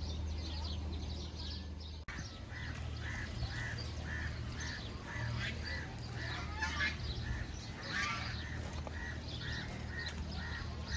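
Farm birds calling. From about two seconds in, one short call repeats steadily about three times a second, with scattered higher chirps over a low steady hum.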